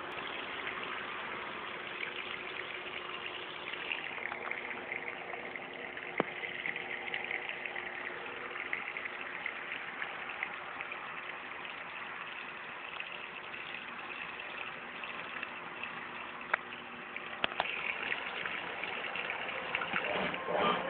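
Brastemp Clean washing machine running with water rushing through it: a steady hiss over a low hum, with a few sharp clicks. The machine is working after a service.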